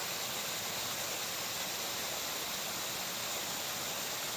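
Waterfall's falling water rushing steadily, an even hiss with no change in level.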